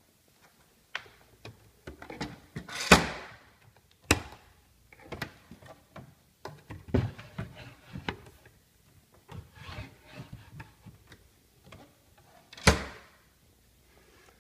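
Knocks, taps and rustling against a piece of wooden furniture, with two loud sharp knocks, about three seconds in and near the end.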